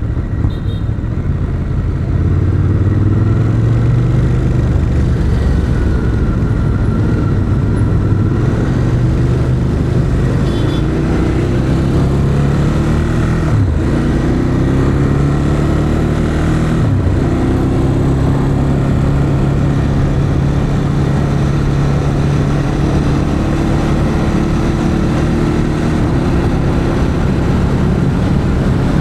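The 2021 Ducati Monster 821's liquid-cooled 821 cc L-twin engine running through its stock exhaust while riding. Its pitch climbs slowly at first, dips sharply and briefly twice near the middle, then holds fairly steady.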